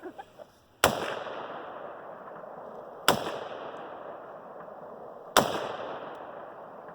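AR-15 rifle fired three times in slow single shots, a little over two seconds apart, each a sharp crack followed by a long echo dying away.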